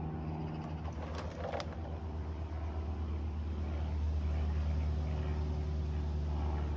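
Garden-scale model locomotive running on the track, heard as a steady low drone that swells a little partway through. A short run of sharp clicks comes about a second in.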